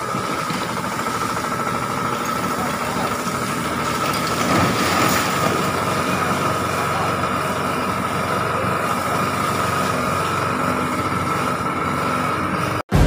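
An engine running steadily with a constant high whine, mixed with scattered voices; it cuts off suddenly near the end.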